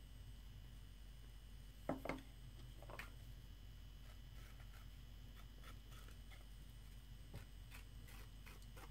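Very quiet handling sounds of pottery tools on soft clay, with a few faint clicks and taps: a slightly louder pair of knocks about two seconds in and another about a second later.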